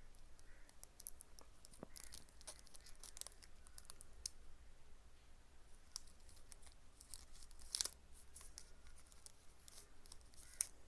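Faint rustling and crinkling of a plastic packaging cover being handled as a small tool is slipped back into it, with scattered light clicks; the sharpest click comes about three-quarters of the way through.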